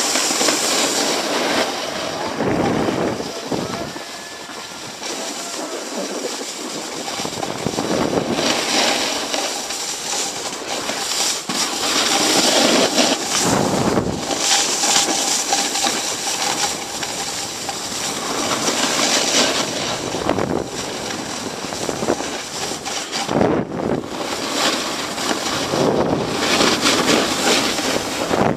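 Snowboard sliding and carving over snow: a rushing scrape that swells and eases every few seconds as the board turns, mixed with wind buffeting the handheld camcorder's microphone.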